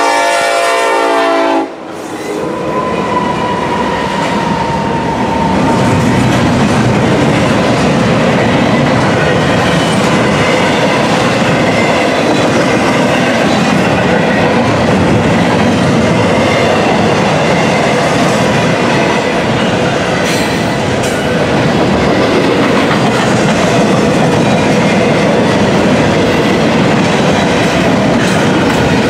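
A Norfolk Southern EMD SD70ACE diesel locomotive's air horn sounding a chord that cuts off suddenly about two seconds in. Then the locomotives pass and a long double-stack intermodal container train rolls by with steady wheel-and-rail rumble and clickety-clack.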